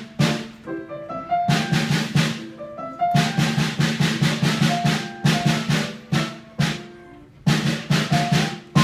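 Snare drum struck with sticks in quick rhythmic groups of strokes, accompanied by piano. The drum pauses briefly about a second in, near three seconds and again around six to seven seconds in, leaving only the piano notes.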